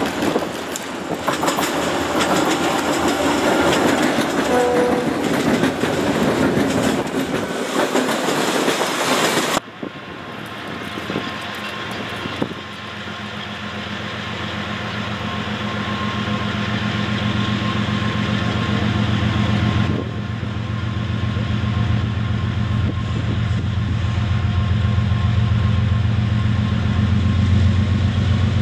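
A diesel-hauled freight train running past close by, with loud engine and wheel noise, until a sudden cut about ten seconds in. After the cut, a second freight's diesel locomotives approach from a distance, their low engine drone growing steadily louder.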